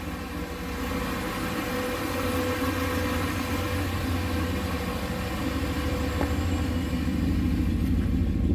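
Turbocharged 6.0-litre LS V8 idling steadily on its first start-up under a new Holley Terminator X-max ECU. The low hum grows a little louder near the end.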